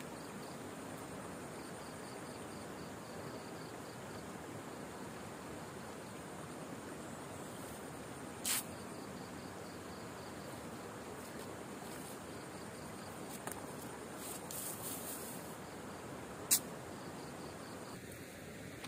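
Insects chirping in short, evenly pulsed high trills that come and go over a steady hiss, with two sharp clicks, one about halfway through and one near the end.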